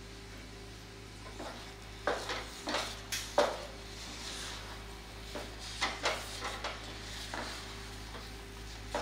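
Wooden spatula stirring and scraping a thick mass of cooked semolina (rava kesari) around a nonstick pan, with irregular scrapes and knocks against the pan starting about a second and a half in. The semolina has soaked up its water and is being worked together with freshly added ghee.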